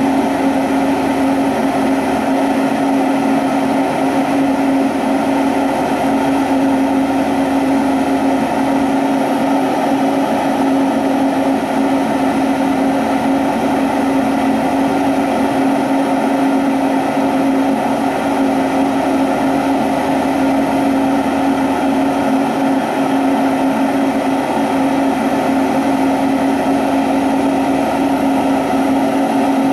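Glassworking torch flame burning steadily, a constant rushing noise with a strong steady low hum running under it and no change.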